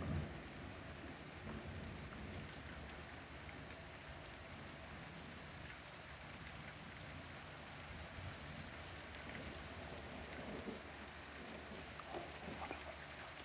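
Steady rain falling during a thunderstorm, with scattered drips and a low rumble of thunder right at the start.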